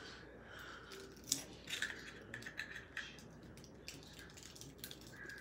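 Faint, scattered clicks and light scraping of small tools working inside an iPhone 6S, prying at the glued-in battery, with a few sharper ticks.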